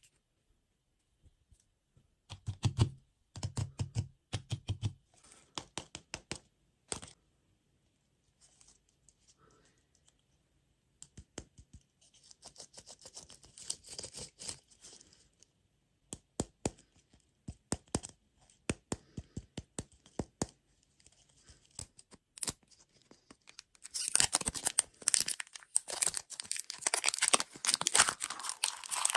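Plastic food packaging being handled and opened: scattered taps and clicks, short spells of rustling, then dense crinkling and tearing from about 24 seconds in.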